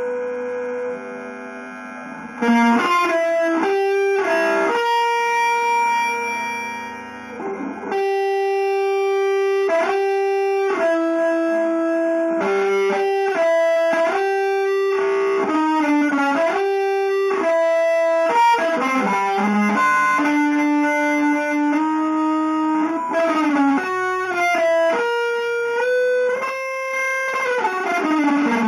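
Electric guitar playing a melodic line of separate held notes, each starting sharply and stopping with a short gap before the next; a sustained tone sounds first, and the notes begin about two and a half seconds in.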